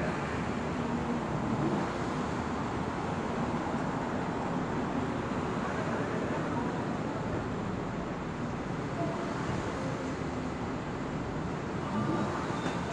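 Steady background noise of road traffic.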